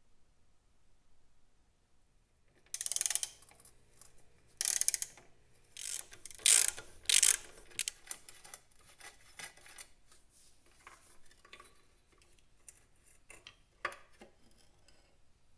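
Workshop bench noise of metal parts and hand tools being worked: four loud scraping or ratcheting bursts in the first half, then lighter clicks and handling, with one sharp click near the end.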